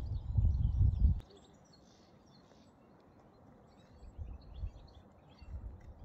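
Small songbirds chirping and singing faintly in short, high notes. A loud low rumble on the microphone covers the first second, cuts off suddenly, and returns in patches near the end.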